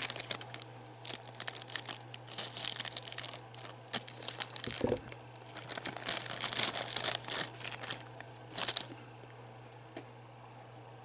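Thin clear plastic bag crinkling and tearing as a plastic miniature is worked out of it by hand, in irregular crackly bursts that stop about nine seconds in.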